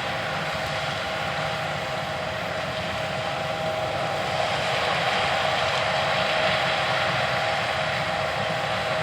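John Deere S670 combines running while harvesting corn: a steady machinery drone with a few held tones over it, growing a little louder about four seconds in.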